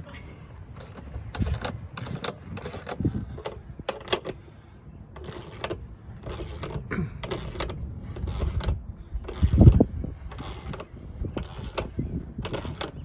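Repeated short metallic strokes, roughly one or two a second, with a few dull thuds, from hand tools working a tractor tire off its rim.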